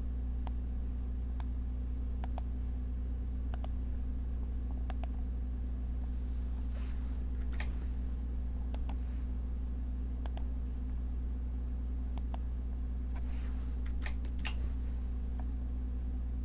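Computer mouse clicking: single clicks and quick double clicks every second or so, with a couple of softer rustles, over a steady low hum.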